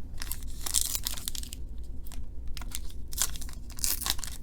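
A foil trading-card pack crinkling and tearing as it is opened by hand, in short irregular bursts.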